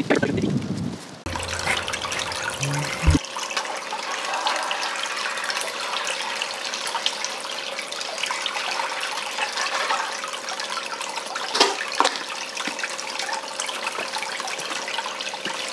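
Water running steadily through a small recirculating sluice and splashing into a bucket, fed by a water pump, with a steady hum underneath. A brief rustle of handling comes before the water starts, and there are two light knocks about twelve seconds in.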